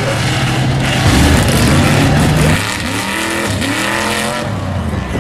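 Big diesel truck engine running hard and steady, then revving up and down in several rises and falls from about two and a half seconds in. The sound changes abruptly near the end.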